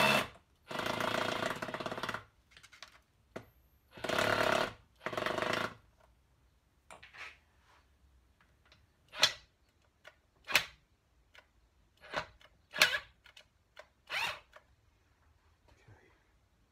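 Cordless impact driver running in four short rattling bursts as it works screws loose on a BSA A70 engine case. About six short sharp clicks follow.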